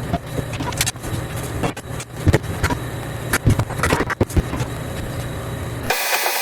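Irregular sharp knocks, cracks and clatter of old boat-cabin bench boards being pried and torn apart, over a steady low hum from a shop heater. Near the end the hum cuts out abruptly and a hiss takes over.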